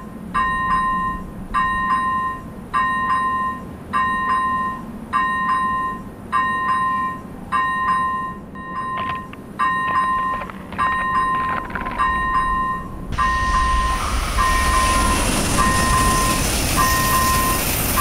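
Railroad crossing warning bell ringing its steady repeating electronic 'kan-kan', about one stroke a second. About thirteen seconds in, the rumble and rush of a passing train joins it.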